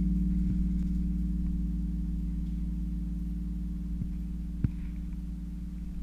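Background music ending on a low guitar and bass chord that is held and slowly fades out. A few faint clicks come through.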